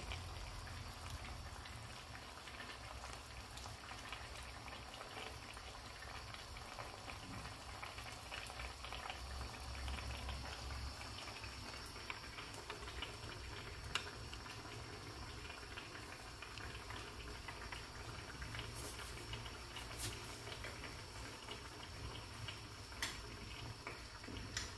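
Spareribs and potatoes simmering in gravy in a nonstick pan, bubbling steadily as the gravy reduces and thickens, over a low steady hum. A few sharp clicks stand out in the second half.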